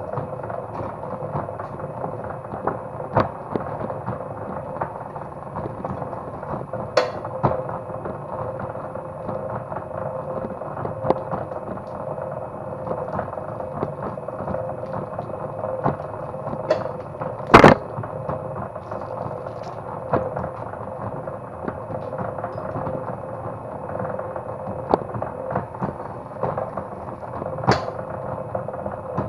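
Motor-driven cable stripping machine running steadily with a hum while cable is fed through it, with scattered clicks and knocks and one sharp, loud knock a little past halfway.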